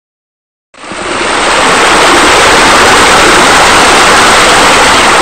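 Steady rush of falling water, as from a pool's sheer-descent waterfalls and negative-edge spillover, fading in about a second in and fading out near the end.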